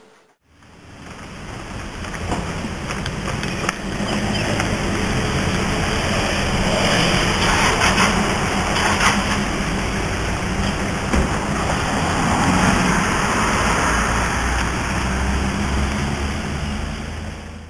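Road traffic noise: a steady rushing with a low rumble, fading in over the first couple of seconds.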